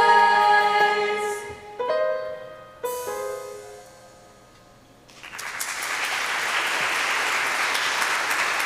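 Instrumental ending of a song, with a held chord, two short final chords and a fade-out, followed from about five seconds in by an audience applauding.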